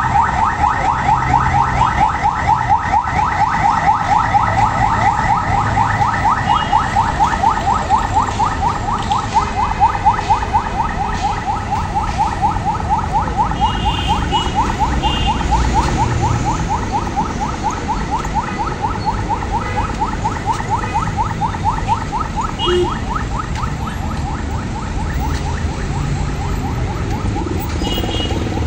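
A car alarm sounding a fast, evenly repeating chirp, fading slowly over the second half, over a low rumble of street traffic.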